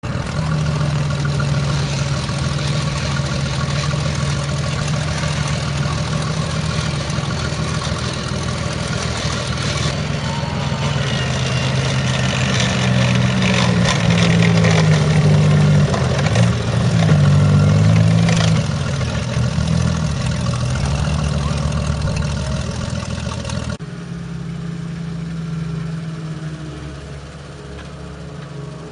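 Alvis Scorpion light tank's engine running as it drives past, its pitch rising and falling between about twelve and nineteen seconds in. About twenty-four seconds in it gives way to the quieter, steadier running of an M16 halftrack's engine.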